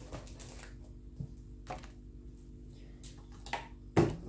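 Light handling of a clear stamp and its plastic sheet on a craft mat: a few soft clicks and rustles, then a sharp tap about four seconds in.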